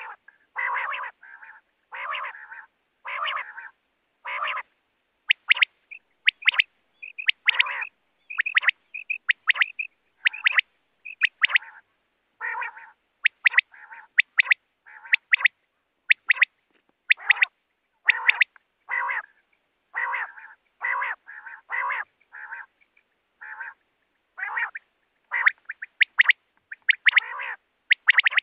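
Recorded quail (batair) calls played in a continuous series: short calls about once or twice a second with clean gaps between them. Some are high, thin, quick notes; others are lower and fuller.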